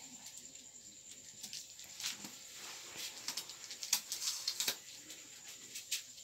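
Faint, irregular rustling and crinkling of paper, with scattered light clicks, as a paper strip on a wall chart is handled.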